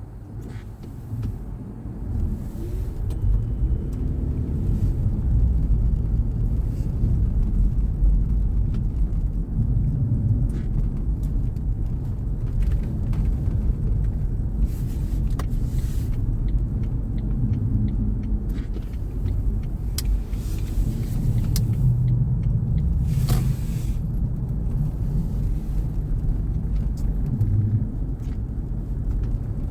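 Car driving: a steady low rumble of engine and tyre noise, which swells in the first couple of seconds as the car gets going. A few brief sharp clicks come through, the clearest just after the middle.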